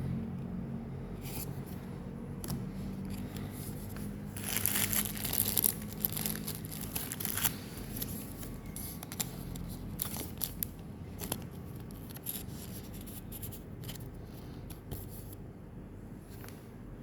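Foil wrapper of a trading-card booster pack being torn and crinkled, loudest a few seconds in, followed by scattered light clicks and rustles as the pack and cards are handled.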